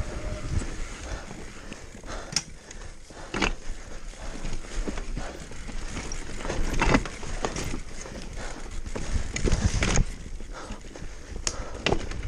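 Downhill mountain bike ridden fast over rough trail: tyres rumbling over rocks and gravel, with frequent irregular sharp rattles and knocks as the bike hits bumps, and a low wind rumble on the microphone.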